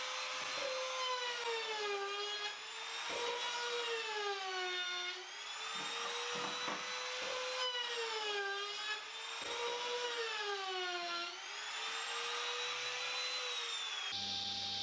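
Handheld trim router with a chamfer bit cutting a 45° chamfer along the edges of a myrtle board. Its whine dips in pitch four times as the bit takes the cut and recovers between cuts. It stops about a second before the end, leaving a steady low hum.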